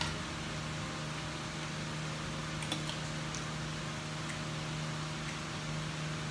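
Steady low electrical hum and hiss of a small kitchen's room tone from a running appliance, with a few faint clicks of a metal spoon against a bowl a few seconds in.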